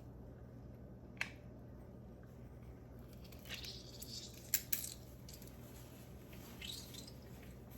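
Half a lemon being squeezed in a hand-held lemon press: a sharp click about a second in, then faint squeezing and scraping with a couple of sharp clicks from the press.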